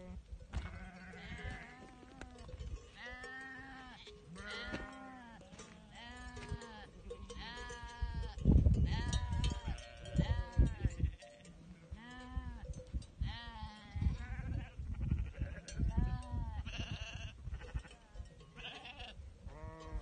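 A flock of Karayaka sheep bleating, many calls from several animals, one about every second, each rising and falling in pitch. Bursts of low rumble come in near the middle and again later.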